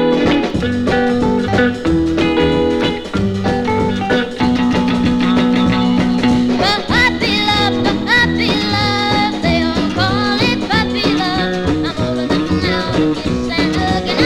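1958 country record: a guitar-led band intro, then a young girl's voice singing with vibrato over the band from about seven seconds in.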